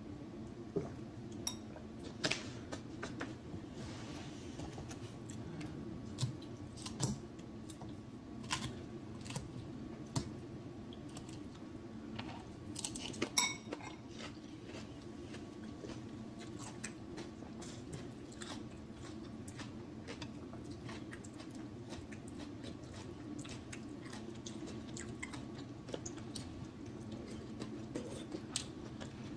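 Close-miked mouth sounds of a person chewing food, with scattered sharp wet clicks and smacks and a brief cluster of them about halfway through, over a steady low background hum.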